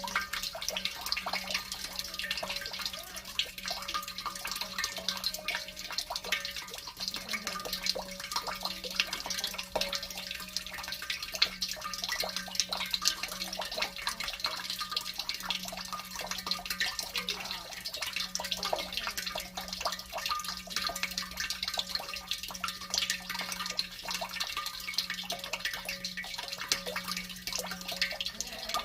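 Tap water running and splashing in a kitchen sink during dishwashing, with a steady stream of small splashes and clicks. A steady low hum runs underneath.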